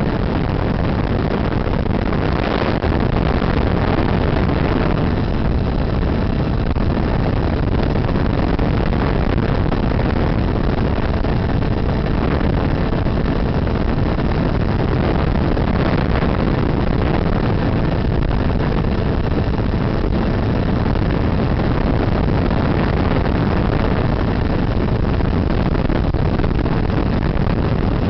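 Steady rushing noise of wind and the motor and propeller of an FPV radio-controlled plane in flight, picked up by its onboard camera.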